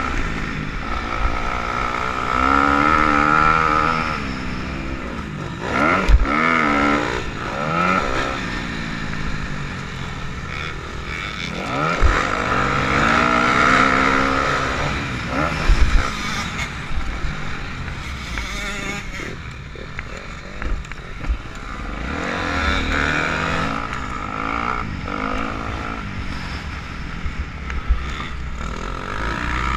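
Motocross dirt bike engine revving up and falling back again and again as the bike accelerates and shifts around the track, close to the rider's helmet. Several sharp thumps break in.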